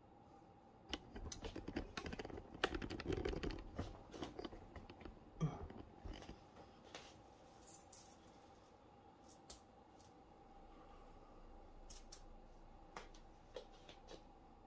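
Faint clicking and rustling as a heavy 18 mm 14k gold rope chain is handled and settled around the neck, densest in the first few seconds, then a few scattered clicks.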